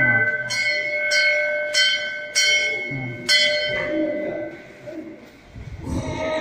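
Hanging metal temple bells rung by hand, struck about five times in quick succession, each strike ringing on and overlapping the last before the ringing dies away.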